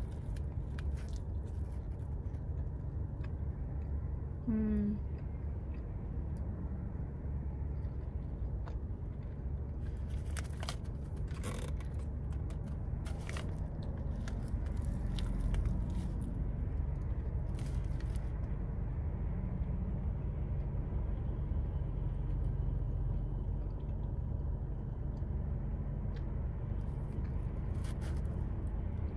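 A person biting into and chewing a toasted flatbread spinach feta wrap, with several crisp crunches and rustles of its paper sleeve, over a steady low hum in a car's cabin.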